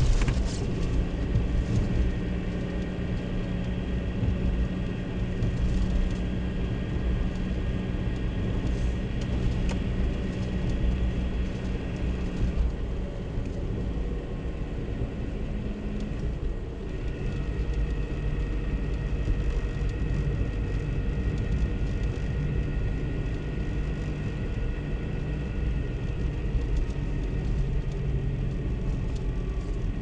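Car driving on a snow-covered road, heard from inside the cabin: steady engine and tyre rumble, the engine note shifting slightly about halfway through.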